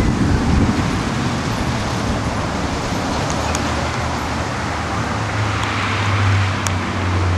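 Thunderstorm wind and rain noise buffeting the microphone, a steady rushing sound. A low steady drone comes in about five seconds in.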